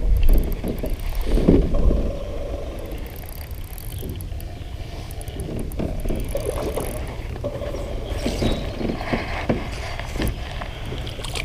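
Spinning reel being cranked as a hooked bass is reeled in to a small boat, with scattered knocks and clicks from handling the rod and boat and a low rumble on the microphone, loudest in the first two seconds.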